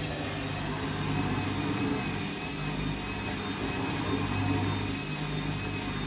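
Front-loading washing machine in its final spin, the drum motor running with a steady hum and a faint higher whine.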